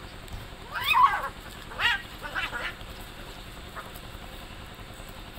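Cats yowling during mating: a few short, wavering caterwauls in the first three seconds, the loudest about a second in, then a faint one.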